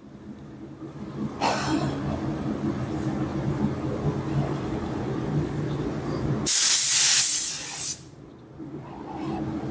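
Compressed-air gravity-feed spray gun spraying black paint: one loud hiss of about a second and a half, starting about two-thirds of the way in. Under it, a steady low machine hum runs on.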